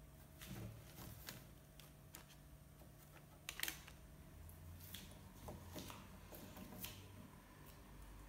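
Near-silent room tone with faint, scattered small clicks and scratches, a sharper cluster about three and a half seconds in.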